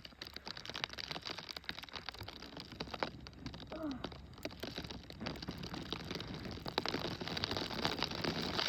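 Snow crunching and crackling close to the microphone, with rustling of clothing.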